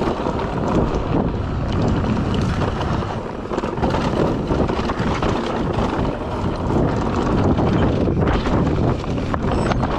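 A mountain bike riding a rough, rocky dirt trail: tyres crunching over dirt and stones and the bike rattling and knocking over the bumps, under steady wind noise on the microphone.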